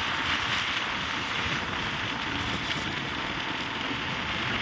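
Steady wind rush over the microphone mixed with the road noise of a motorcycle travelling at highway speed, an even hiss with no distinct engine note.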